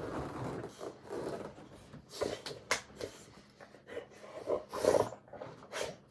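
A dog roughhousing with a person: irregular scuffling and rubbing with short snorts and huffs, the loudest burst a second before the end.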